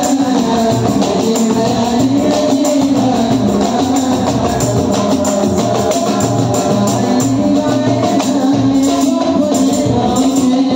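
Gambus music: singing over rapid, rhythmic hand drumming on an aluminium darbuka (goblet drum), with jingling percussion running through it.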